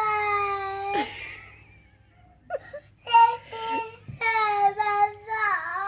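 A voice crying in long, drawn-out wails, one ending about a second in and several more following from about halfway, the last ones wavering up and down in pitch.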